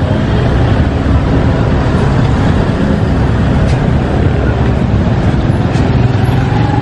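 Steady rumble of street traffic, with vehicle engines running close by.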